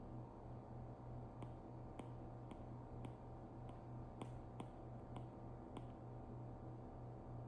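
Faint, light taps of a stylus tip on an iPad's glass screen, roughly two a second, over a steady low hum.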